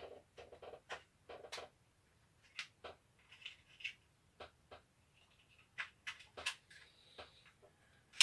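Light clicks, taps and rustles of plastic drill parts being handled and pressed together, scattered irregularly, with one sharper click near the end.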